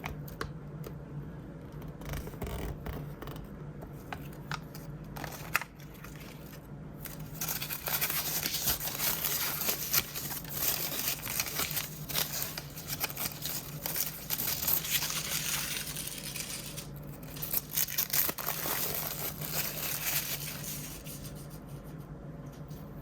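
Plastic blind-bag packaging being cut and torn open and crinkled by hand: a few sharp snips and clicks at first, then a long stretch of dense crinkling and rustling with a short pause near the end.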